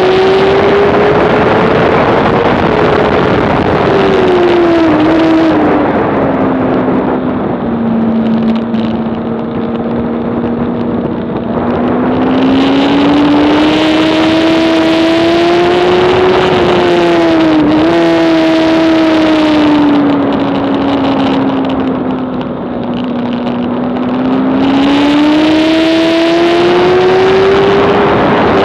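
Honda CBR600RR's inline-four racing engine heard onboard at racing speed. It revs high, drops in pitch and quietens into the corners, holds a lower steady note through them, then climbs again under throttle, twice over. There is a brief dip in pitch about two-thirds of the way through.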